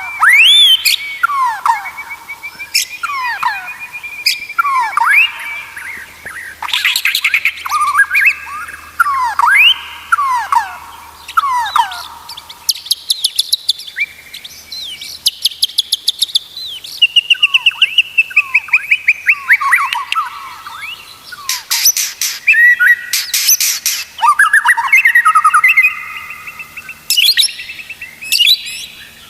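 White-rumped shama (murai batu) singing a loud, varied song of rising and falling whistled phrases and held notes, broken several times by fast rattling trills.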